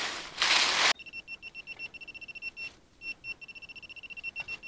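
Handheld metal-detecting pinpointer probe beeping fast and steadily, about five or six short high beeps a second with a short break midway, signalling metal right at its tip in the soil. Before the beeping, about a second of loud rustling as a gloved hand works through dry leaves.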